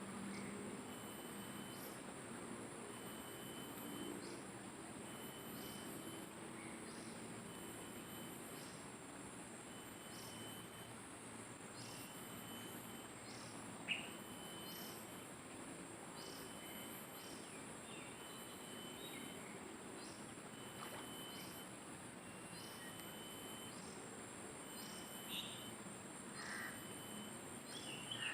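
Outdoor riverside ambience: insects droning steadily with a short chirp repeating about once a second, and occasional short bird calls. One sharp click about fourteen seconds in.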